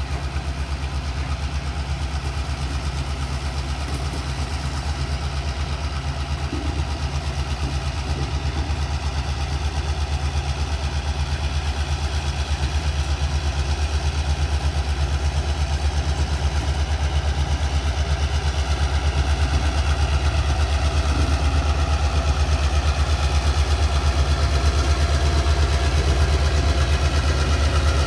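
Diesel freight locomotive's engine running with a steady low throb, getting gradually louder as the locomotive draws nearer.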